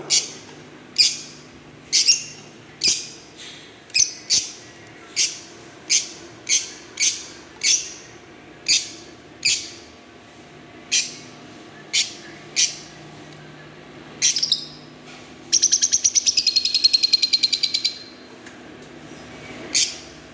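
Fischer's lovebirds chirping: sharp, high single chirps about once or twice a second, then after a short pause a fast, buzzy chattering trill for a couple of seconds, and one last chirp near the end.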